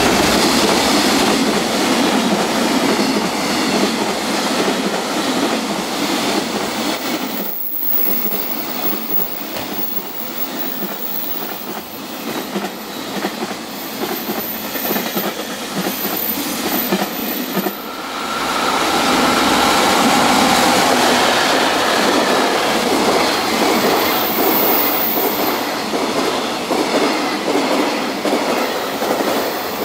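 Container freight trains running past, the wagons' wheels clattering steadily over the rails with some wheel squeal. About 18 s in the sound cuts off sharply and a second freight train takes over, louder at first.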